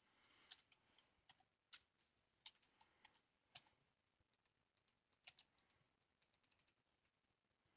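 Faint, scattered clicks of a computer keyboard and mouse, with a quick run of clicks near the end.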